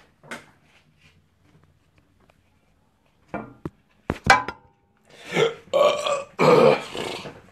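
A few sharp taps or knocks about three to four seconds in, then a man burping loudly three times in a row.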